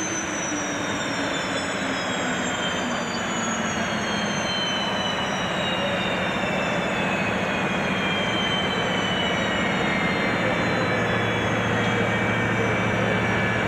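Boeing 737-400's auxiliary power unit running in the tail cone: a steady turbine rush with a high whine that falls slowly in pitch over several seconds, echoing inside a hangar.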